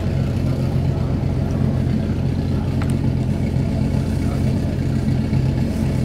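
An engine idling steadily with a low, even drone that does not rise or fall.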